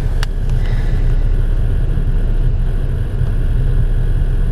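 Car driving at road speed, heard from inside the cabin: a steady low rumble of engine and road noise, with a brief click about a quarter second in.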